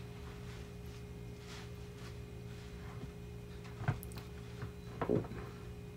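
Faint kitchen handling noises as a plastic bag is handled at the counter: a brief click a little before four seconds and a short rustle about five seconds in. Underneath runs a steady low electrical hum.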